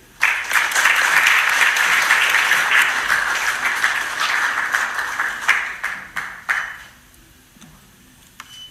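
Audience applauding, starting suddenly and dying away about seven seconds in.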